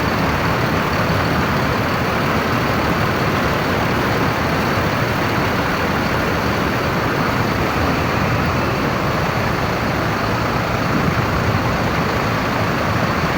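Tour bus engines running, heard as a steady, unbroken noise of idling and moving heavy vehicles mixed with traffic.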